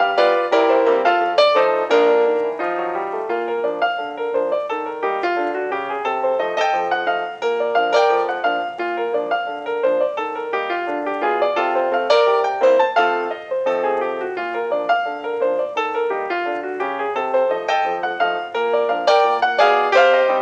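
Piano music accompanying a silent film, a brisk tune of quick notes and chords.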